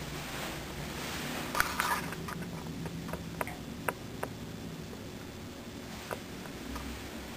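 Footsteps and handling clicks from someone walking through an empty apartment, over a steady low hum. A quick cluster of knocks about a second and a half in is the loudest part, followed by a few single clicks.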